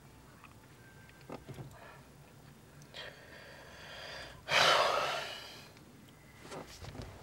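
A dozing man snores, building to one loud, noisy snore about four and a half seconds in that lasts about a second, followed by quieter breathing.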